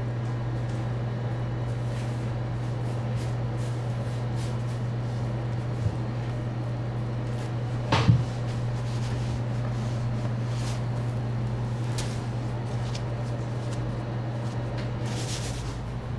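Steady low machine hum of bakery equipment, with a dull thud about halfway through as dough is handled on the floured table, a fainter knock a couple of seconds earlier, and a soft brushing sound near the end.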